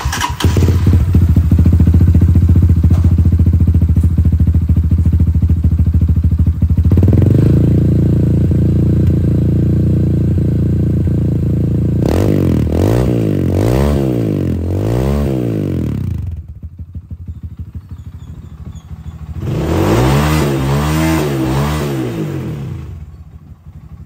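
Motorcycle with an air-cooled engine and a BR Megaphone aftermarket exhaust, catching just after the start and idling steadily, the idle stepping up a little about seven seconds in. The throttle is then blipped three times, the engine settles back to idle, and it is revved again in a quicker run of blips before dropping away near the end.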